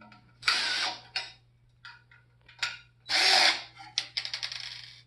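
A cordless drill-driver runs in two short bursts, the second followed by a rapid run of clicks that slow and fade.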